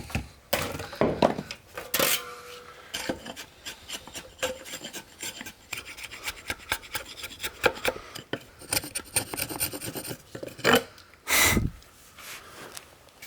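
Hand tools working timber: irregular scraping and rasping strokes on wood, mixed with knocks, and one louder burst near the end.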